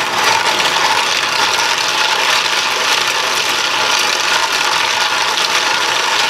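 Hand-turned 3D-printed plastic marble machine running: steel slingshot pellets rattle and clatter without a break as the spiral lift carries them up and they roll down the plastic tracks. Kind of loud.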